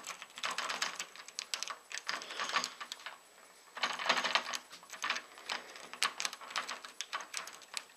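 Half-diamond lock pick and tension wrench working the pin tumblers of a Kwikset doorknob lock: quick, irregular metallic clicks and scrapes as the pins are raked, with a short lull a little before the middle. The lock has not yet given.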